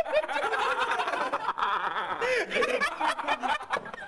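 Several men laughing hard, with snickering and high-pitched cackles.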